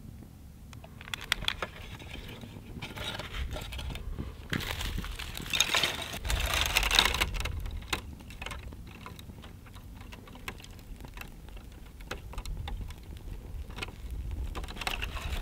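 Dry brush twigs rustling, crackling and snapping as they are handled and piled onto a small kindling fire, with sharp crackles from the catching kindling; the densest rustling comes around the middle.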